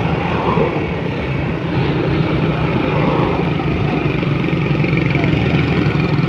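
Motorcycle engine running steadily under way, with wind and road noise on the microphone.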